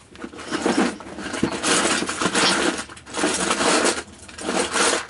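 Small loose objects being rummaged and moved around by hand, in four bursts of rattling and rustling with a few sharp clicks.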